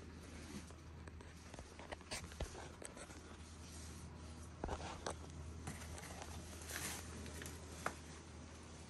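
Faint scratching and a few sharp clicks over a steady low hum, as a baby snapping turtle shifts in shallow water in a plastic tub, its claws and shell scraping the tub and gravel.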